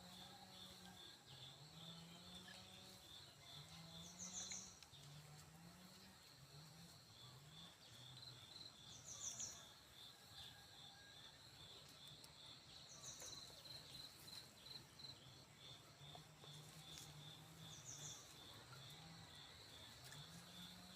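Faint outdoor ambience of insects trilling steadily, with a short high chirp every four to five seconds and low rising calls repeating underneath.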